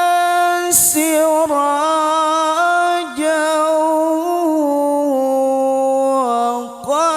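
A single voice reciting the Qur'an in a melodious, chanted style (qira'ah), drawing out 'wa ja'ala fiha siraja' in long, ornamented held notes. There is a short breath about a second in, and the melody steps lower in the second half before climbing again near the end.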